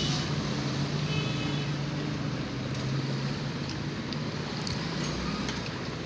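Steady low hum over an even background noise in a restaurant dining room, the kind a fan or air conditioner makes.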